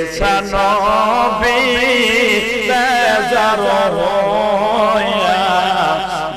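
A man's solo voice chanting a slow, melismatic Bengali devotional verse, drawing each word out over long, wavering notes.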